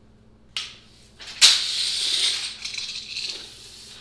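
Steel tape measure blade retracting into its case: a click about half a second in, then a loud rattling metallic whir that starts sharply about a second and a half in and trails off, with a short final rattle at the end.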